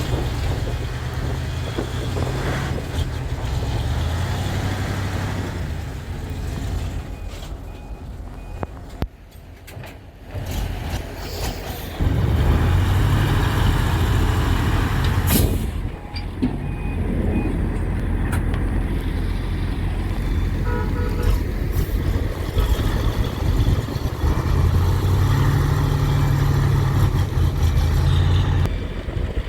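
Heavy diesel engine running under load and revving. It dips briefly around ten seconds in, then comes back louder about twelve seconds in. A few short beeps sound about two-thirds through.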